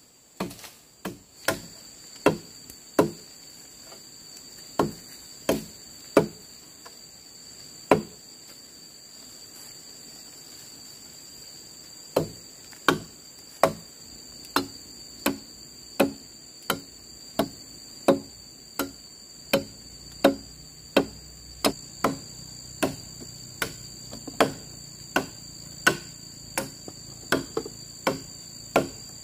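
Firewood being chopped by hand with a blade: sharp chopping blows, a few scattered strokes, a pause of about four seconds, then a steady run of about one and a half strokes a second. A steady high insect drone runs underneath.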